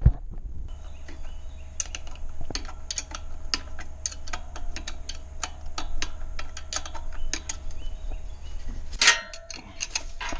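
Ratchet wrench clicking in short runs, about four clicks a second, as bolts are tightened evenly into aluminum. A louder metallic clatter about nine seconds in.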